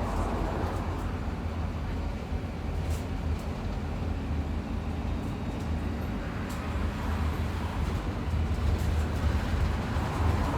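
Bus interior while moving: a steady low rumble of engine and road noise, with a few faint clicks and rattles now and then.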